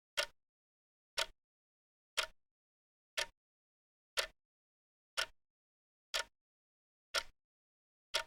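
Clock ticking once a second, each tick a short sharp click with silence between, alternate ticks slightly different in a tick-tock pattern.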